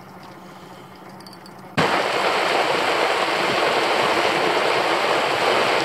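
Faint quiet ambience for about two seconds, then heavy rain cuts in suddenly: a steady loud hiss of a downpour pelting the lake surface around an open canoe.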